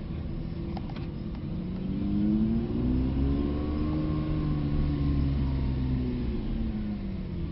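Porsche 911 GT3's 4.0-litre flat-six engine at low speed, heard from inside the cabin: a steady low rumble, with the revs rising smoothly from about two seconds in and falling away again after about four seconds as the car gently accelerates and then eases off.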